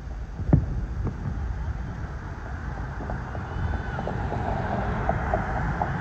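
Distant fireworks: a sharp boom about half a second in and a second one about a second in, then scattered faint crackling from about four seconds on, over a steady low rumble.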